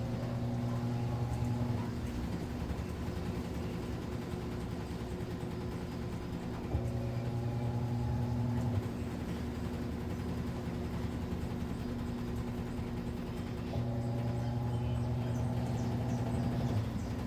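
Midea Wave-Agitator top-load washing machine running with a steady hum, its motor surging three times for two to three seconds each with a whine: at the start, about seven seconds in, and about fourteen seconds in.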